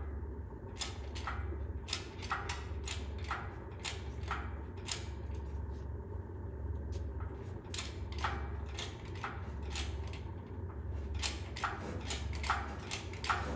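Irregular light metallic clicks and clinks, a couple of dozen spread unevenly, from parts and tools being handled while an engine is worked out of a truck's engine bay, over a steady low hum.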